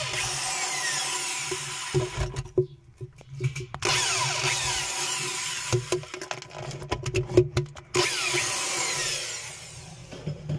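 Power drill driving a socket, running in three bursts of a second or two each as it backs out the bolts holding a Maytag washer's tub to the transmission. Clicks and knocks of the socket and loose bolts come between the bursts.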